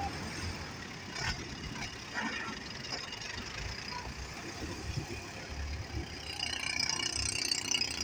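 Farm tractor's diesel engine running steadily as the tractor pushes soil with its front blade, with a few short knocks about a second and two seconds in.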